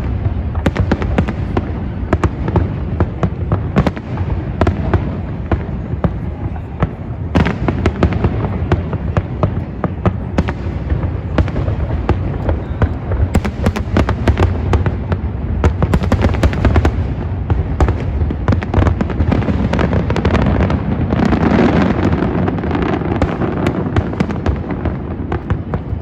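Aerial fireworks exploding in quick succession, a dense run of sharp bangs and crackles over a continuous low rumble, swelling louder about three quarters of the way through.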